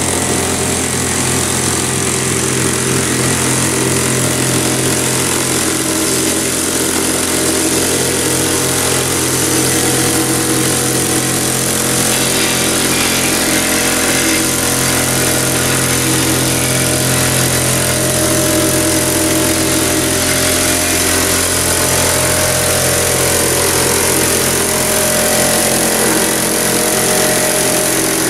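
Small plate compactor running steadily as it is worked over loose gravel, its engine holding an even, unbroken drone.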